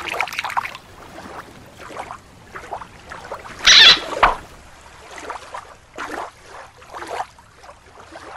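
Shallow water splashing and lapping as a hand lets a small plastic toy shark go in it, in uneven bursts with one louder splash near the middle.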